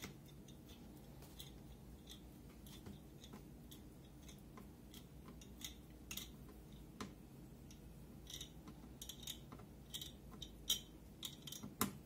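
Faint scattered clicks and ticks of a screwdriver turning a spring-loaded CPU heatsink screw in a small desktop computer, coming more often in the second half.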